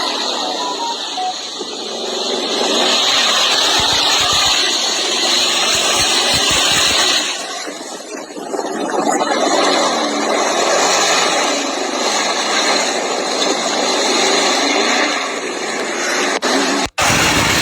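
Car driving off road, a steady mix of engine and tyre noise that eases off briefly twice and cuts out for an instant near the end.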